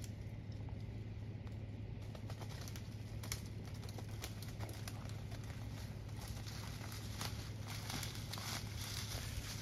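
Rustling and crackling of dry leaves and twigs underfoot as someone pushes through a dense brushy thicket, with scattered snaps of breaking sticks that grow busier after the first couple of seconds.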